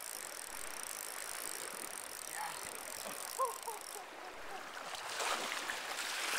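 Steady rushing of a river's current over a riffle.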